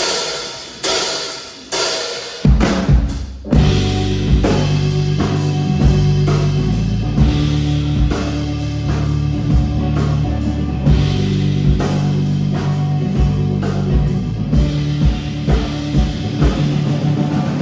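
Instrumental rock intro. Three big band hits ring out, one after another. About two and a half seconds in, the full band with drum kit and bass guitar comes in on a steady beat.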